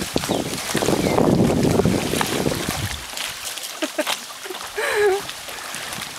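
Wind buffeting the microphone for about the first three seconds, then quieter sounds of a canoe on the water with a few sharp knocks, and a short wavering voice-like call about five seconds in.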